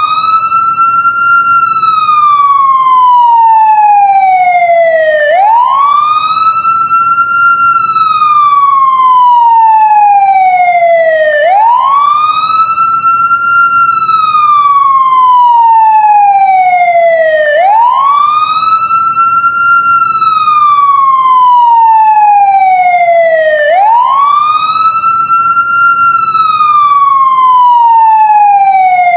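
Police siren sounding in wail mode, loud: a tone that sweeps up quickly and then glides slowly down, over and over, about every six seconds.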